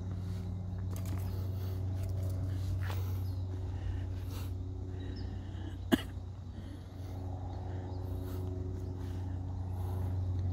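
A steady low engine hum, with light rustling and one sharp click about six seconds in.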